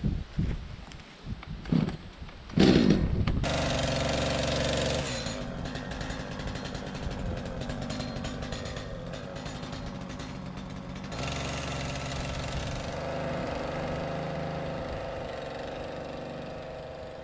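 Two-stroke chainsaw starting about two and a half seconds in, after a few knocks, then running steadily, growing louder twice for a few seconds.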